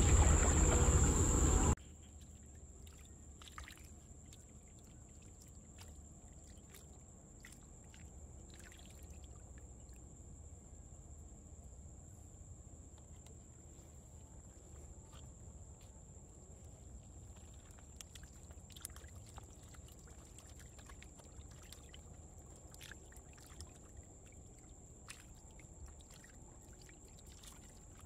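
Faint trickling and lapping of water in a small mud-walled trap pool, with scattered light ticks and small splashes. The first couple of seconds hold a much louder noise that cuts off suddenly.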